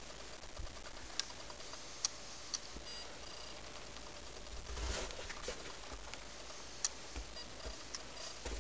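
A dog moving and nosing about in deep snow: soft crunches, a denser rustle about five seconds in, and a few sharp clicks over a steady hiss.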